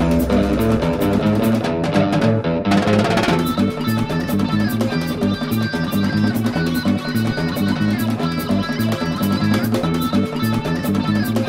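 Background music with guitar, bass and drums keeping a steady beat. About two seconds in, the high end drops out briefly and returns with a rising sweep.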